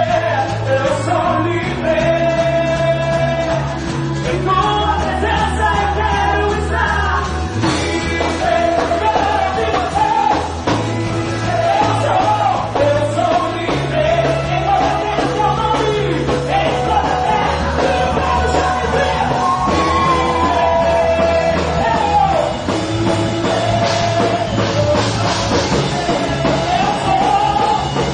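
Christian worship band playing a loud rock-style song with a sung melody over a steady, sustained bass line.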